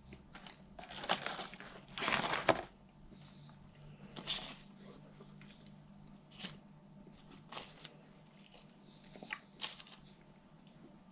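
Burger King paper wrapper crinkling and rustling in short bursts, loudest about two seconds in, mixed with soft bites and chewing of french fries.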